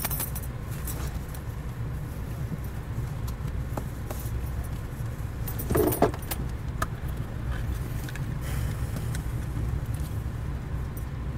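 A car on the move, heard as a steady low rumble, with scattered light clicks and jingling and a louder knock about six seconds in.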